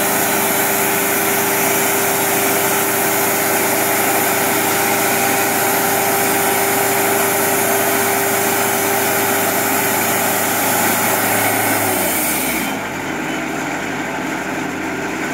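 Wood-Mizer sawmill's Kubota diesel engine running steadily at speed, then slowing down to idle about twelve seconds in, as a high hiss cuts off.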